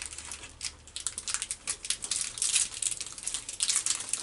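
Take 5 candy bar wrapper crinkling as it is handled and opened, a dense run of small crackles.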